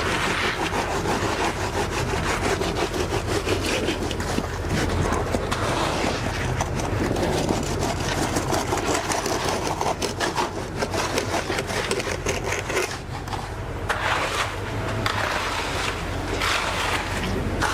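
Concrete pump's engine running steadily, with repeated scraping and rubbing of tools working wet concrete.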